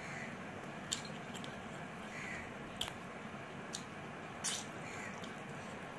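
Close-miked eating sounds: a person chewing a mouthful of rice and mutton, with several sharp wet mouth smacks over a steady background hiss.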